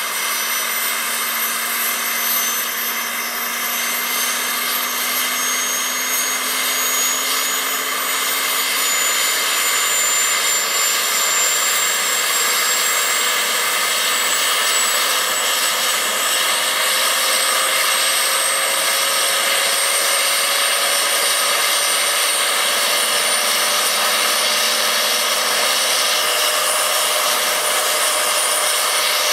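Model helicopter turbine engine running on the ground in a CH-46 Sea Knight scale model, with its tandem rotors turning. A steady jet-like hiss carries a high whine that slowly rises in pitch as the turbine spools up, and the sound grows a little louder about ten seconds in.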